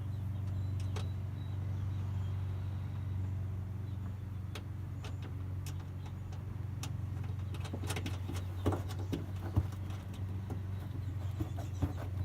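A steady low hum in the background, with scattered light clicks and taps of hand tools working the starter solenoid's terminal nuts.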